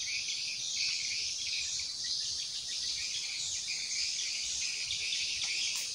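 Continuous high-pitched chorus of insects, steady and dense throughout.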